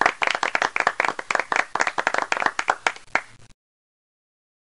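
A class of students applauding, with many quick claps overlapping, until the recording cuts off abruptly about three and a half seconds in.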